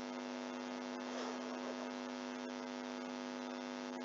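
Steady electrical mains hum with a buzzy stack of overtones, picked up by the recording setup, with a few faint clicks.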